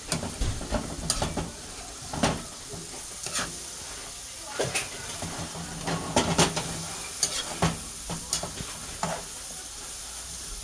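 A utensil stirring pak choy stems cooking down in a pan, with irregular scrapes and clinks against the pan about once a second over a steady sizzle.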